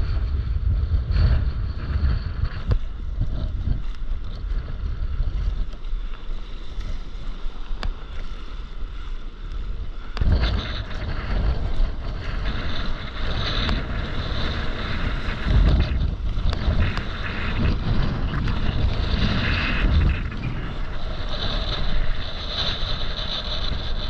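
Wind buffeting the camera's microphone over sea water sloshing and the splashes of paddle strokes from a stand-up paddleboard, the water noise growing busier about ten seconds in.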